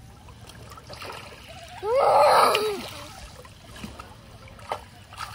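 Water splashing, with a child's short cry about two seconds in, over a steady background wash.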